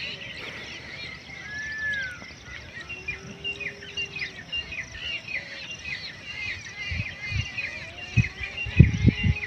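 Small birds chirping in a busy outdoor chorus, many short high chirps repeating over and over, with a few longer whistled notes. Near the end, low rumbling thumps come in, the loudest about nine seconds in.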